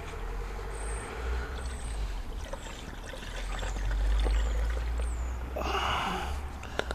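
Drained engine coolant being poured from a drain pan through a funnel into the coolant reservoir: a steady trickle, with a louder rush of liquid near the end.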